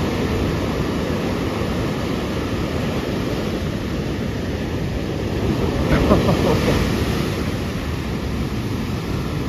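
Ocean surf breaking on a sandy beach, a continuous rush of waves with wind buffeting the microphone. The surf swells a little louder about six seconds in.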